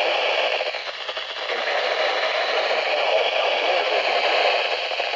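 Steady static hiss from a weather radio receiver on a weak signal, dipping slightly about a second in.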